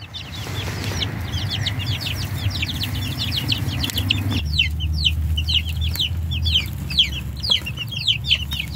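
Bantam chicks peeping, a rapid stream of short, high, falling peeps several times a second, over a low background rumble that changes abruptly about four seconds in.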